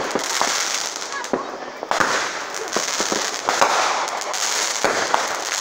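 Fireworks going off: a dense run of sharp crackling pops over a steady hiss of sparks, with a louder burst about two seconds in.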